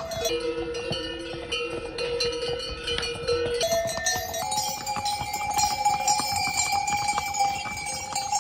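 Bells on passing pack mules ringing and jangling as the animals walk by, with several overlapping tones that shift in pitch partway through.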